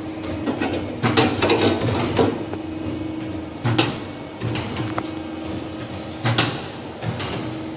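A saw blade sharpening machine running, with a steady hum and a sharp mechanical clack about every second or so as it cycles.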